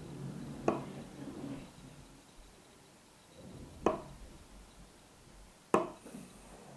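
Three sharp knocks a few seconds apart, the last the loudest: stiff paper sheets being handled and set down on a wooden table.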